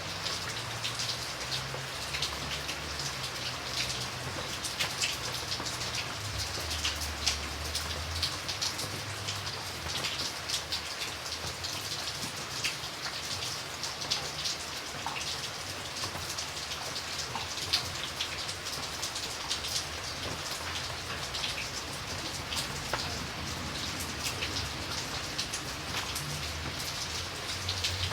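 Steady rain falling, with many distinct drop hits standing out against an even hiss. A faint low rumble comes and goes beneath it.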